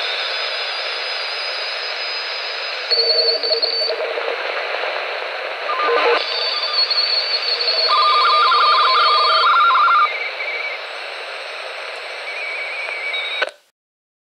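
Intek H-520 handheld CB radio receiving AM on 28.100 MHz in the 10 m band. Under steady static hiss come morse-like tones at several pitches, keyed on and off, which the uploader guesses may come from a satellite. The audio cuts off suddenly about a second before the end.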